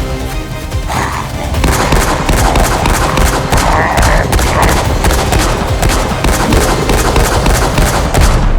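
Rapid, sustained gunfire, many shots a second, starting about a second in, laid over a film's background music.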